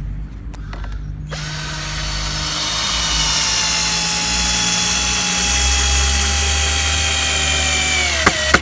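A high-pitched power-tool motor whine starts about a second in, sinks slowly in pitch and cuts off suddenly near the end, over a steady low engine hum.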